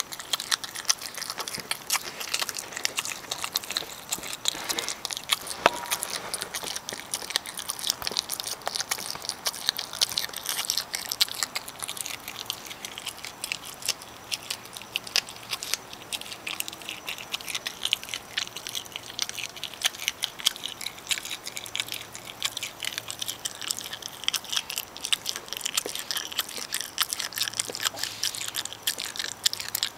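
Virginia opossum chewing food with its mouth open, close up: a fast, continuous run of wet clicks and smacks.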